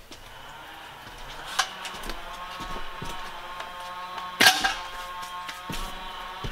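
Metal grill parts knocking and clanking as the new burner tubes are handled and fitted into the Weber gas grill's firebox. There are a few light knocks and one sharp metallic clank, the loudest, about four and a half seconds in, over a steady ringing tone.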